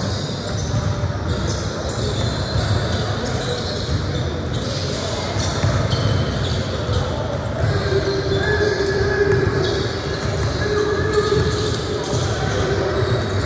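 Irregular knocks and thuds with voices in a large room.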